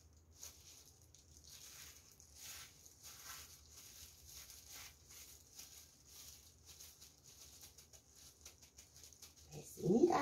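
Faint, irregular rustling and light crunching of breadcrumbs as gloved hands press and pat a croquette in a glass bowl of crumbs. A voice begins just before the end.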